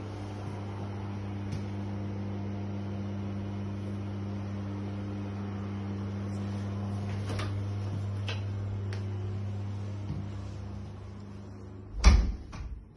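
Bathroom extractor fan running with a steady low hum that fades out near the end. A loud single thump comes about twelve seconds in.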